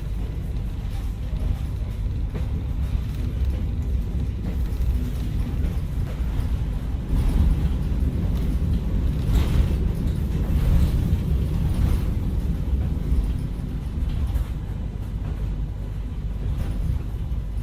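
An added sound-effect track: a steady low rumble, swelling slightly in the middle.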